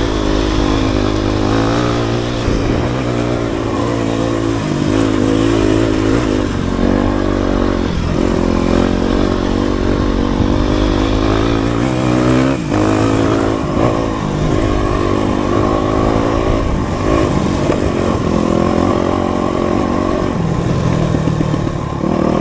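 Dirt bike engine under load, revving up and falling back again and again. One sharp knock a little past halfway.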